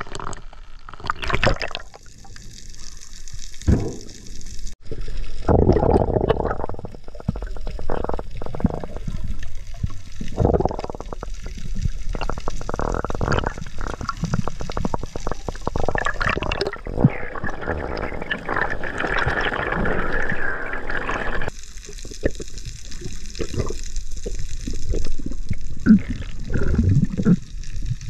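Seawater sloshing and splashing around the camera at the surface and underwater, in uneven bursts, with a steadier rushing stretch about three-quarters of the way through that cuts off suddenly.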